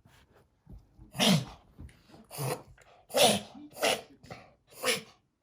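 Italian Greyhound puppy making a run of five sharp, sneeze-like snorts, roughly a second apart, starting about a second in.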